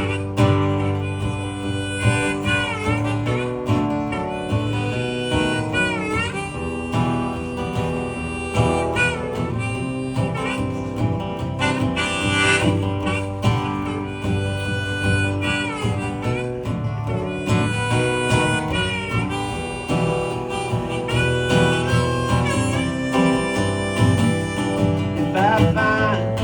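Live band's instrumental break between sung verses: a harmonica solo with bending notes over acoustic guitar accompaniment.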